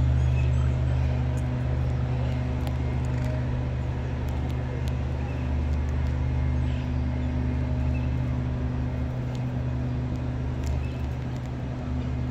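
Steady low rumble of distant city traffic, with a constant low hum running through it.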